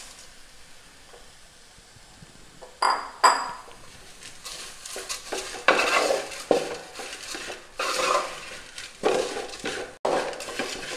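A utensil clinks twice against a metal vessel about three seconds in. Then come repeated scraping strokes of a spoon stirring beaten rice (aval) into sautéed banana in a hot pan.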